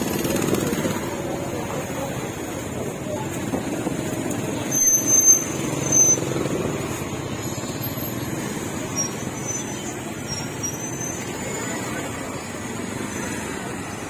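Busy market street ambience: steady motor traffic with indistinct voices, and a few short high squeals about five to six seconds in.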